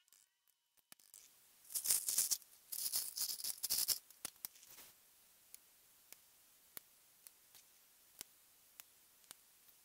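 Loose mechanical keyboard switches (Gateron Yellow Pro) rattling together in a pile for a couple of seconds. After that come single sharp clicks, about one every half second, as the switches are pressed one by one into the hot-swap plate of a Royal Kludge RK98 barebone keyboard.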